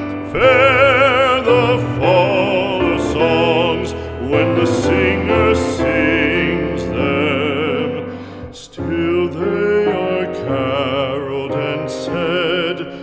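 Background music: operatic singing with wide vibrato over an instrumental accompaniment, with a brief break between phrases about eight and a half seconds in.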